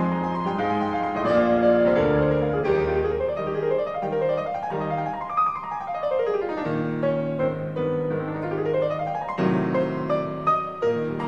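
Background piano music, with quick runs of notes sweeping up and down in pitch.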